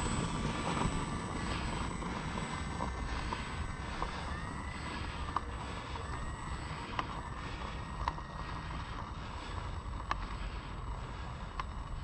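Electric motor and propeller of an FMS Ranger 1800mm RC plane taxiing away down a runway. Its whine shifts gently in pitch with the throttle and grows fainter over the first few seconds as the plane moves off.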